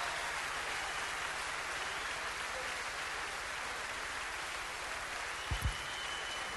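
Concert audience applauding, a steady wash of clapping, with two short low thumps about five and a half seconds in.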